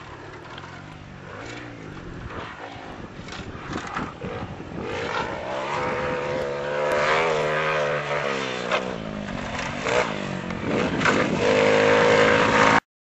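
Small engine of a motorised downhill bike running as the bike comes closer, its pitch rising and falling with the throttle and growing steadily louder, with scattered clicks and knocks from the trail. It cuts off suddenly near the end.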